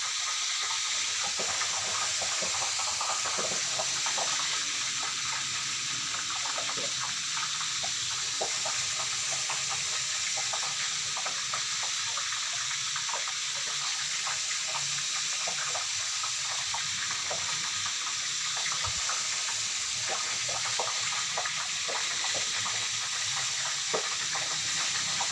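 Tofu deep-frying in hot oil: a steady sizzle with many small crackles and pops.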